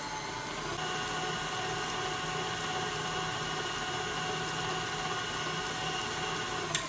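KitchenAid Artisan tilt-head stand mixer running steadily, its motor whining as the flat beater churns dry bath bomb mix. The whine steps up about a second in, and a sharp click comes near the end.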